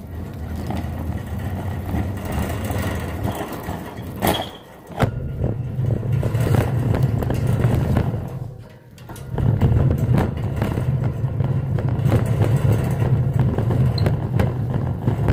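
Shopping cart rolling over a hard store floor: a steady low rumble from the wheels with a scatter of small clicks and rattles. It pauses briefly twice, about four and a half and about eight and a half seconds in.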